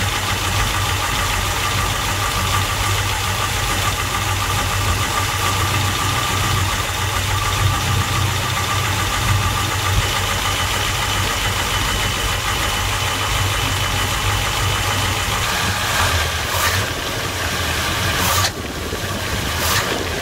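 Warmed-up 454 big-block Chevy V8 (LS5) idling steadily. A few brief knocks come near the end.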